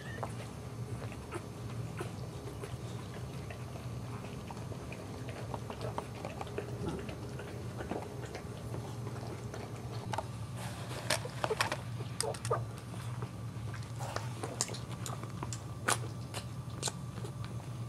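Wet licking and smacking mouth sounds of a boxer mother grooming her newborn puppies as they suckle: scattered sharp clicks, sparse at first and coming thicker and louder in the second half.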